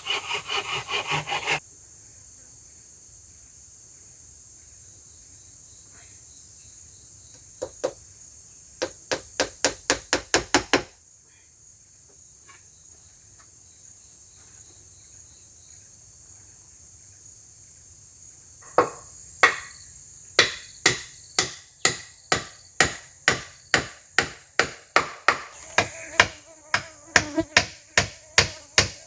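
Wood being worked by hand: a quick rasping stroke for the first second and a half, then sharp blows struck on wood, a short fast run about eight seconds in and a steady run of about two blows a second from about nineteen seconds in. A steady high drone of forest insects carries on underneath.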